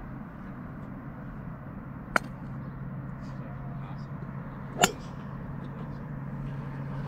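Two sharp, short cracks of golf clubs striking balls nearby, about two seconds and five seconds in, over a steady low hum in the open-air range background.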